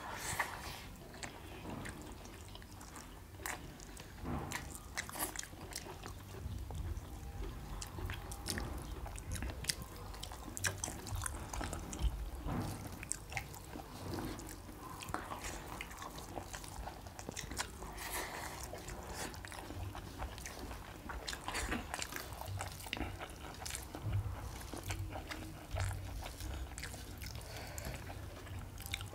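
Close-miked eating: mutton curry and rice being chewed, with soft irregular clicks and squishes as fingers mix rice and curry on steel plates.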